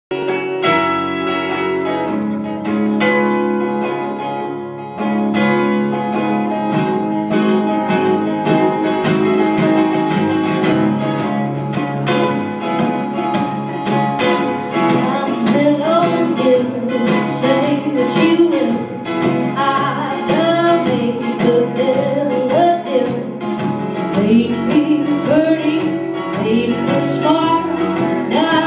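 Live acoustic country music: guitar and fiddle playing, with a woman's singing coming in over them about halfway through.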